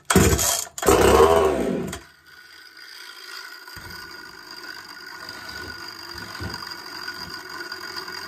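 A two-stroke Homelite Super XL-130 chainsaw, freshly ported, is pull-started with hard yanks on the recoil starter cord in the first two seconds, and the engine fires with a putt. A quieter steady hum follows and slowly gets louder.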